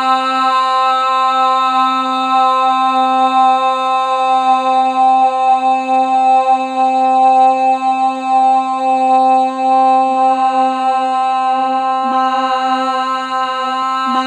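Meditative toning drone: one pitch held without a break, rich in overtones, in the manner of a mantra chant.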